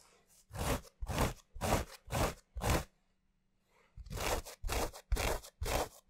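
Heavy slubby Japanese selvedge raw denim (15.5 oz, sanforized) rubbed against itself by hand: swishing strokes about two a second, in two runs of about five with a pause of a second in between. The sound is smooth, without the rumbly, harsh, gritty noise typical of slubby textured denim.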